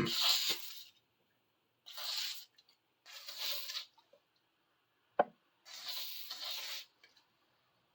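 Spray hissing in four short bursts as metal saw parts are sprayed down, with one sharp knock of something set down on the bench about five seconds in.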